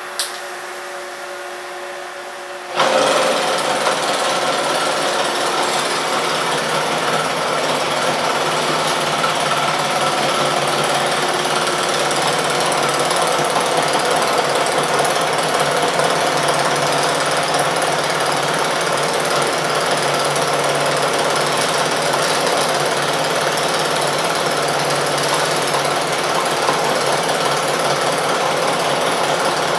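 A steady machine hum, then about three seconds in a 245-amp TIPTIG hot-wire TIG welding arc on stainless steel strikes and runs steadily and loudly, with a fast rhythmic rattle from the oscillating filler-wire feed.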